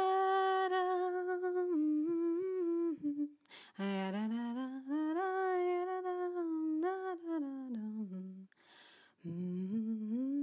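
A voice humming a slow tune in long held notes, in three phrases with short breaths between them.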